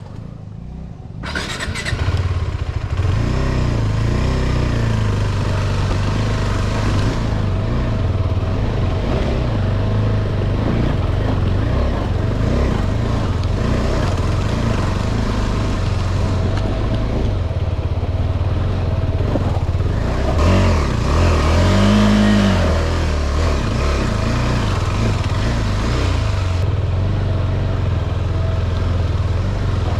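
KTM 390 Adventure's single-cylinder engine running steadily as the motorcycle is ridden off-road, coming in about a second in. Around twenty seconds in the engine revs up and back down.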